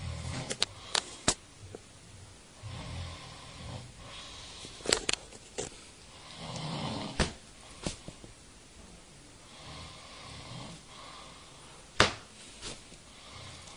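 A man snoring heavily, one rasping breath about every three and a half seconds. Sharp slaps of a flyswatter land between the snores, the loudest about twelve seconds in.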